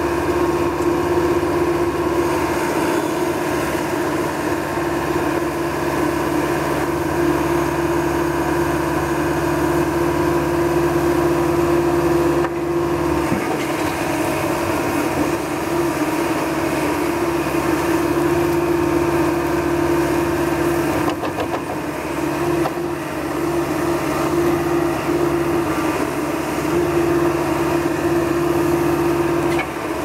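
Caterpillar 420E backhoe loader's diesel engine running steadily while the backhoe arm digs, its note dipping briefly about 12 seconds in and again around 21 seconds.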